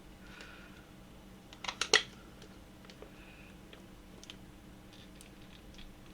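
A quick cluster of sharp clicks and knocks, loudest about two seconds in, followed by a few faint ticks: a screwdriver working against the seized motor shaft and plastic housing of a coffee grinder whose motor is stuck tight.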